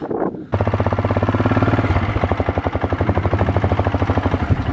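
A vehicle engine idling steadily, a fast even chugging that starts about half a second in.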